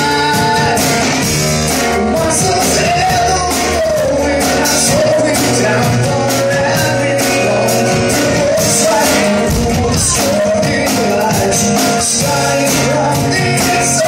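Live rock band playing: a singer's voice over acoustic guitar and a drum kit with frequent cymbal hits.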